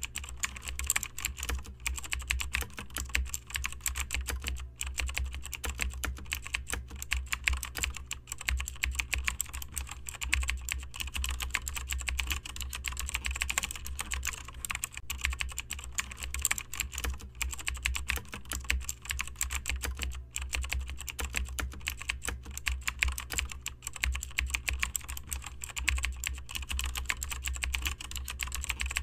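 Typing sound effect: rapid, continuous key clicks over a steady low hum.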